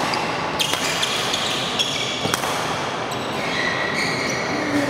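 Badminton rackets hitting a shuttlecock a few times in sharp cracks during a doubles rally, with court shoes squeaking on the floor near the end, in a large echoing sports hall.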